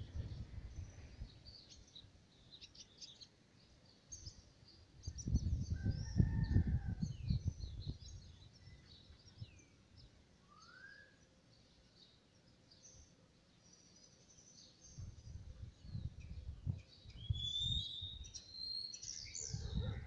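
Birds chirping and calling in the background, many short chirps and a few rising notes, with louder calls near the end. Two spells of low rumbling noise, about five seconds in and again from about fifteen seconds on.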